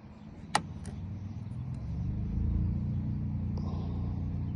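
A vehicle engine rumbling steadily, swelling about two seconds in. About half a second in there is a sharp metallic click, with a fainter one just after, from a Lishi pick working a car door lock.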